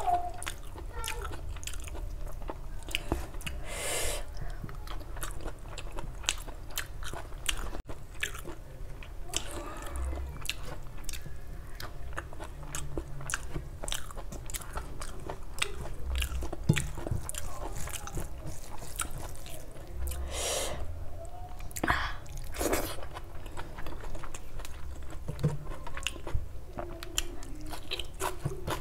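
Close-miked chewing of egg curry and rice eaten by hand: a steady stream of small mouth clicks, with a few longer, louder sounds about four seconds in and again about two-thirds of the way through.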